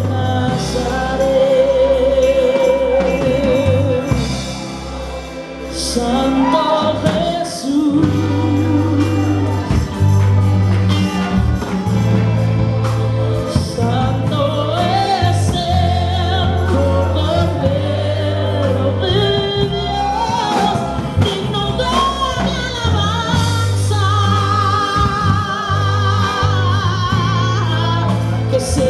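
Live gospel worship band: a woman sings lead into a microphone, her voice wavering with vibrato, over congas, a drum kit, electric guitar and a deep bass line.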